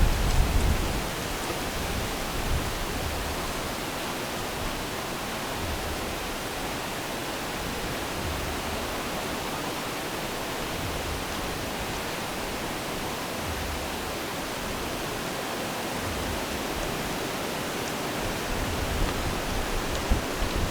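A steady, even hiss with no distinct sounds in it, with a few low rumbles near the start.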